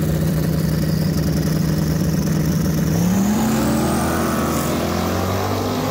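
Drag race cars on the start line: engines held at a steady high rev, then rising in pitch as the cars launch about three seconds in and pull away down the track.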